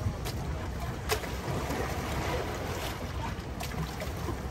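Sea waves washing and water sloshing around a swimmer, with wind buffeting the microphone as a steady low rumble. A few short sharp clicks cut through, the loudest about a second in.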